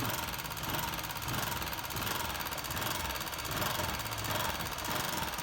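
Honda CG 125's single-cylinder pushrod engine running with a loud, rapid mechanical tapping from the valve gear. The mechanic takes it for worn, loose pushrods letting the rocker arms hammer the valve tips, with the valve clearance never adjusted.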